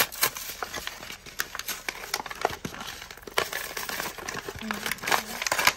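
Cardboard backing of a plastic blister pack being torn and peeled off by hand, with irregular crinkling and tearing.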